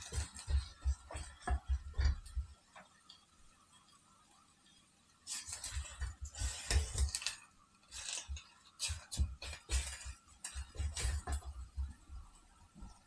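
A utensil scraping and clinking against a cast-iron Dutch oven while tomato paste is stirred and roasted in it, in irregular spells with a pause of a couple of seconds early on, along with low thumps.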